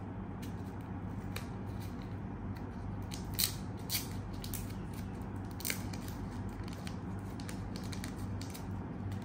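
Thin plastic wrapping crinkling in the fingers as a small packaged accessory is unwrapped: a run of irregular sharp crackles, with a few louder ones in the middle, over a low steady hum.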